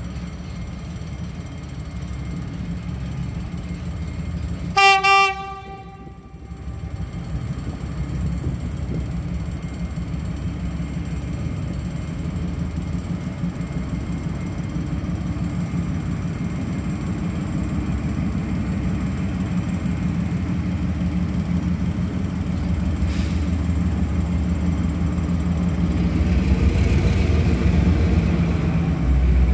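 Diesel-electric CRRC Qishuyan CDD5A1 locomotive hauling a train of empty coal wagons. It sounds a short horn blast about five seconds in, then its engine rumbles low and steady. The rumble and the rail noise grow louder as the train approaches.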